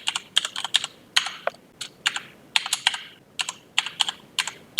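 Typing on a computer keyboard: short, irregular bursts of a few keystrokes each, with brief pauses between them.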